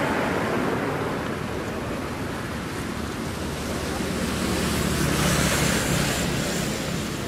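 Steady rushing wind noise on the microphone, swelling slightly about five seconds in.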